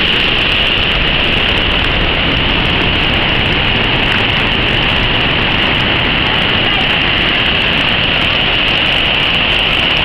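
Mountain waterfall's whitewater rushing over rocks close below, a loud, steady, unbroken noise.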